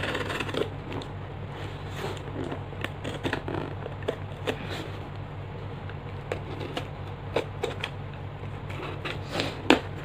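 Snap-off utility knife cutting through packing tape along a cardboard box, with short scrapes, taps and rustles as the box is handled and turned, and a sharper click near the end. A steady low hum sits underneath.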